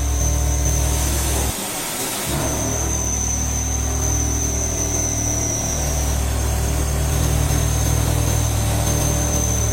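CNC milling machine running a corn-cob roughing end mill, a steady low hum with a constant high whine. The hum cuts out briefly about a second and a half in, then resumes.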